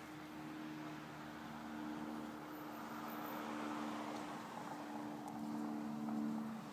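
A car passing on a nearby residential street: engine and tyre noise that swells and peaks near the end, over a steady low hum.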